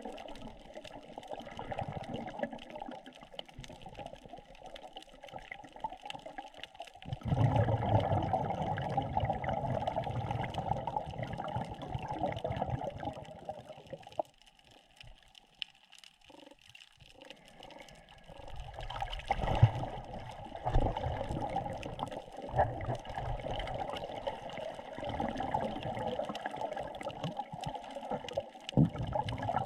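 Underwater water noise picked up by the camera while snorkeling: a muffled wash and rumble of moving water with many faint crackling clicks through it. It grows louder about a quarter of the way in, drops away for a few seconds around the middle, then swells again.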